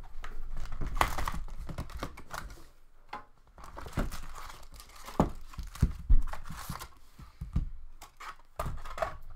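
Hockey trading card packaging being torn open and crinkled by hand: irregular crackling and tearing of wrapper, with a few louder knocks from handling the box and cards.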